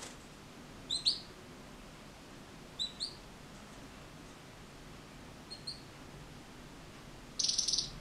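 Red-factor canary giving pairs of short, high, upward-flicking chirps three times, the third pair fainter. Near the end it gives a brief, very rapid buzzy trill.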